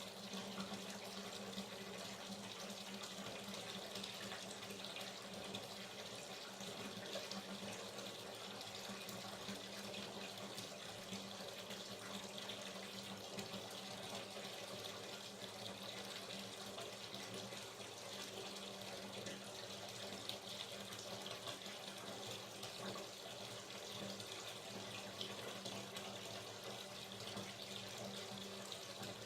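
Water running steadily from a tap into a bathtub as the bath is filled, an even, unbroken splashing.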